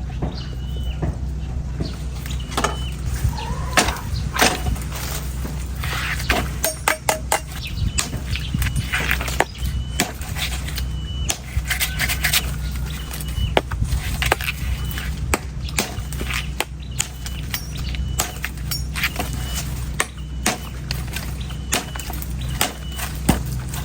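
Knife chopping and scraping into a coconut: many sharp knocks and cuts with short high-pitched squeaks from the blade, over a steady low hum.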